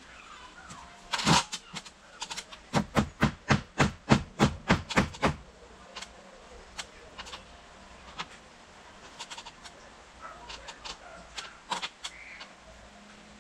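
Hammer striking nails into a timber shed frame: one loud blow, then a quick run of about a dozen blows at roughly four a second, followed by a few scattered lighter knocks.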